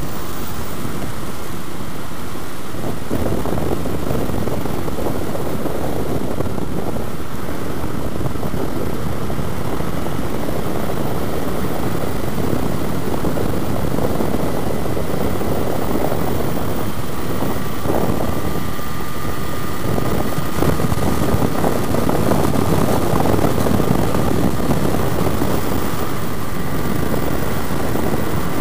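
Wind rush over the microphone mixed with the steady drone of a 2005 Yamaha FZ6's inline-four engine, ridden at steady road speed.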